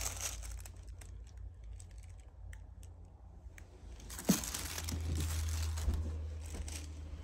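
Rustling and crinkling handling noises with scattered small clicks, and one sharp knock about four seconds in, followed by a stretch of denser rustling.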